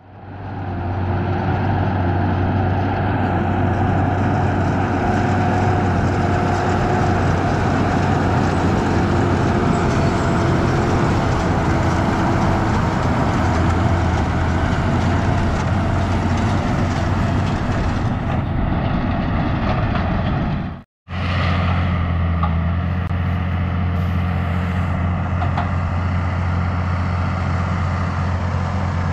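Tractor engine running steadily at working revs with a strong low hum. About two-thirds of the way through, the sound cuts out completely for a moment, then resumes at a slightly different tone.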